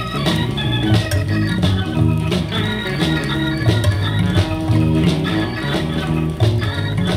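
Instrumental break of a rhythm-and-blues record: held chords over a steady beat, with no singing, played back from a vinyl LP through a tube amplifier and speakers.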